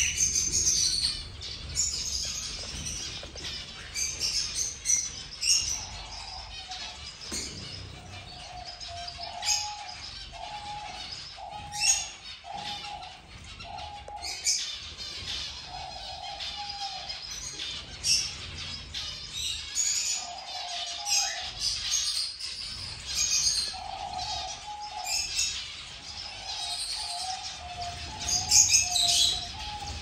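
A flock of zebra finches chirping and calling busily, with many quick high chirps and short mid-pitched calls repeating about every half second in runs. Wings flutter now and then.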